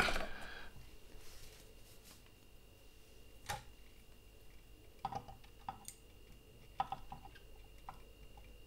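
A brief rustle at the start, then scattered faint clicks and taps of small pliers and fingers handling a camera's internal parts while seating a ribbon cable.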